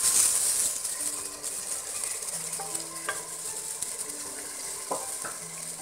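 Tomato masala with green chillies frying and sizzling in a pot while a ladle stirs it. The hiss is strongest in the first second, and the ladle knocks lightly against the pot a few times.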